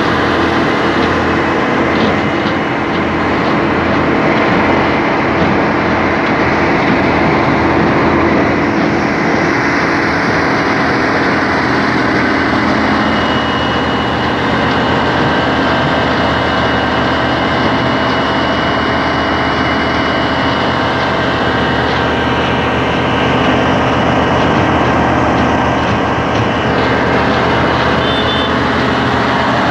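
Salem 1600 coal auger drilling machine running steadily and loudly, its engine under load as it drills into a coal seam.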